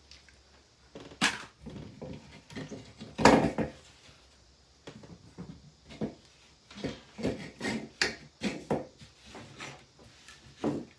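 Hard plastic parts of a dismantled handheld vacuum being handled and set down: scattered knocks and clatter, the loudest about three seconds in, with a quicker run of knocks in the second half.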